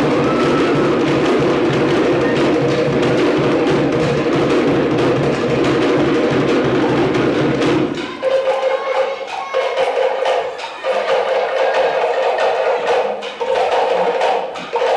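Cook Islands drumming, with wooden slit drums struck in a fast, dense rhythm. About eight seconds in, the deep drum drops out and a lighter, sharper beat carries on.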